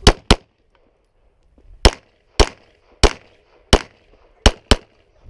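Glock 34 9mm pistol firing eight shots. The first two come as a quick pair, then four single shots well over half a second apart, then another quick pair near the end.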